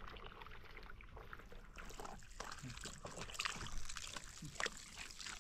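Water splashing and trickling, with scattered small irregular clicks and knocks.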